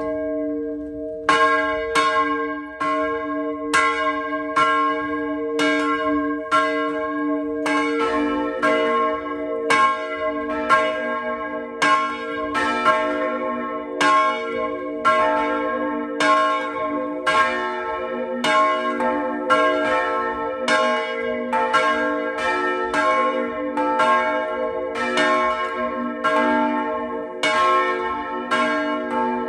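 Church bells ringing. One bell strikes about once a second over a lingering hum, and about eight seconds in a second, deeper bell joins, so the strikes come closer together and overlap.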